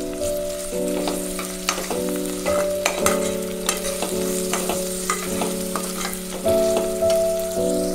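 Onions, chillies and curry leaves sizzling in hot oil in a pressure cooker while a spatula stirs them, scraping and clicking against the pot every fraction of a second. Steady held musical notes run underneath, changing pitch now and then.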